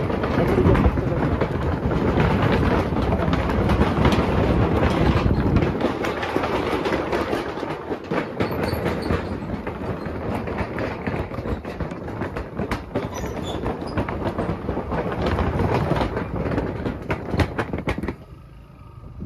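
Motorcycle crossing a steel bridge, the deck rattling and clattering under the wheels in a rapid run of knocks over the engine's running. The clatter stops abruptly near the end.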